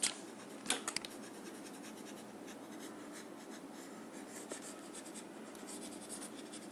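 Faint scratching of a pen stylus across a drawing tablet as a stray line is rubbed out, with a couple of sharp clicks about a second in.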